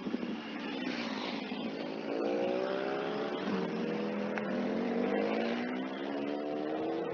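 A road vehicle's engine accelerating past, its pitch rising steadily from about two seconds in, over a background of traffic noise.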